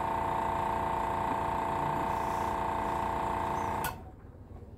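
Airbrush compressor motor running with a steady hum, then cutting out abruptly about four seconds in, part of its on-off cycling every few seconds.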